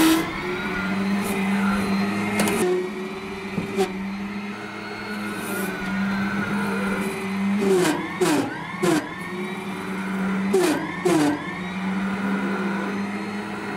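An electric mini loader's electric drive and hydraulic motors whine with a steady hum while it pushes its bucket into a sand pile. About eight and eleven seconds in, the motor whine sweeps up and down in pitch several times under load, along with sharp clicks and knocks.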